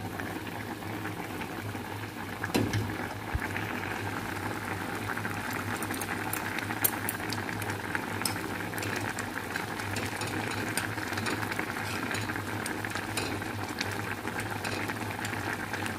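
A pot of ramen noodles and broth boiling hard: a steady bubbling with many small pops and ticks, and a single knock about two and a half seconds in.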